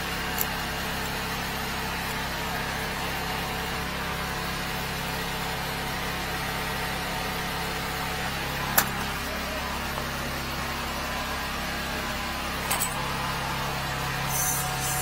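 The engine of a 13-horsepower high-pressure sewer jetter runs steadily, with a few sharp clinks. A hiss of spray starts near the end.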